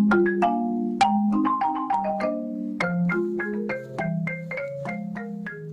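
Background music: a melody of quick struck, ringing notes on a marimba-like mallet instrument over lower sustained notes, growing gradually quieter toward the end.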